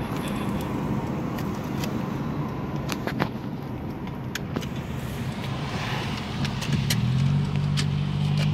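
Car driving, heard from inside the cabin: a low rumble of engine and road noise with a few light clicks and rattles. About seven seconds in, a steady low engine hum comes up and holds.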